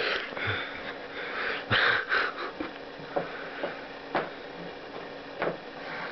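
A cat playing with a string pulled across carpet: two short hissy bursts, the louder about two seconds in, then a few light, sharp taps and clicks as it paws at the string.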